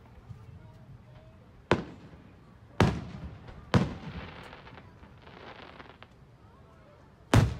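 Aerial fireworks shells bursting overhead: four sharp booms, the first three about a second apart and the loudest one near the end, each trailing off in a short rumble, with a faint hiss between the third and fourth.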